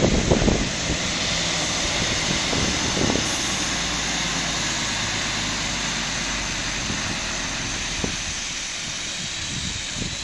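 Diesel engine of a heavy-haulage truck towing a loaded low-loader slowly past: a steady drone, loudest about the first half second.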